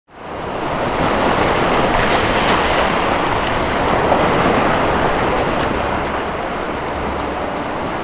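Sea surf: waves breaking and washing up the shore in a steady rushing noise that fades in at the very start.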